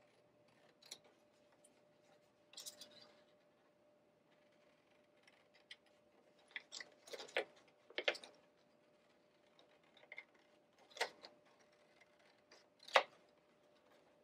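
Scissors snipping through paper, a string of short separate cuts at uneven intervals, the loudest near the end.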